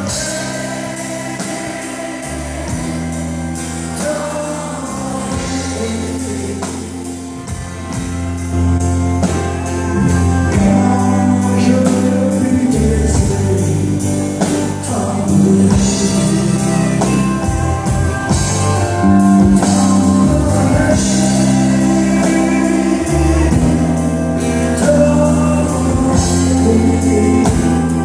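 Live country band: a man singing into a microphone over strummed acoustic guitars, bass and drums. The band grows fuller and louder about eight seconds in.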